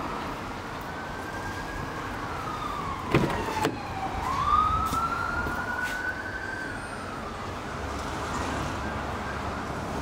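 A wailing siren rising and falling slowly in pitch, with two sharp knocks about three seconds in.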